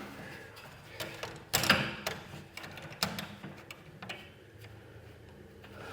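Metal garage door hinge and roller hardware being handled: a few sharp clicks, with the loudest clunk about a second and a half in and another click at about three seconds.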